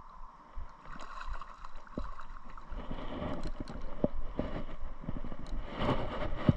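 A small hooked fish splashing at the water's surface as it is reeled in on a spinning rod and lifted out, with clicks and knocks from the rod and reel being handled. The splashing grows denser about halfway through, with a louder burst near the end.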